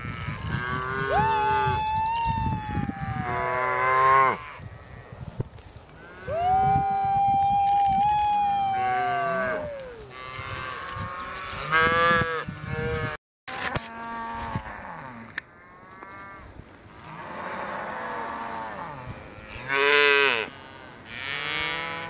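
A herd of cows and calves mooing and bawling, many calls overlapping one after another. Two long, high calls stand out, each held steady before falling away at the end.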